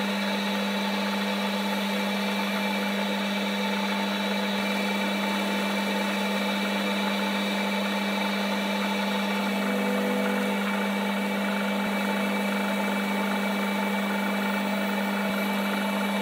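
Lathe running steadily with a constant hum, its four-jaw chuck spinning a nylon split bush while the bush is parted off.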